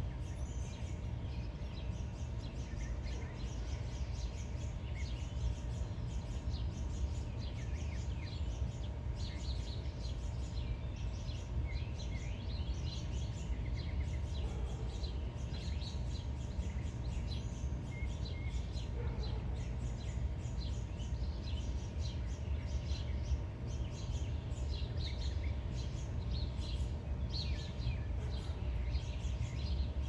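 Small songbirds chirping and calling on and off, many short high notes, over a steady low rumble and a faint hum.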